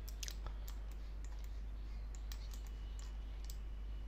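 Irregular clicking of a computer mouse and keyboard: a quick cluster of clicks at the start, then scattered single clicks, over a steady low hum.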